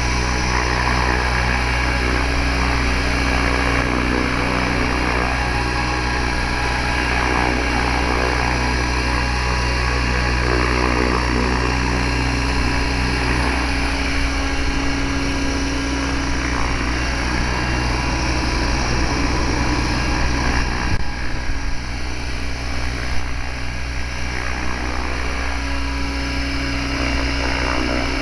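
Electric RCA Chaos 600E RC helicopter hovering: the steady whine of its motor and drive gears over the whir of the rotor blades. From about three-quarters of the way through, the sound turns uneven, rising and dipping.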